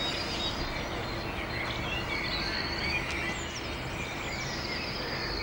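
Outdoor ambience: a steady background rush with small birds chirping and twittering throughout.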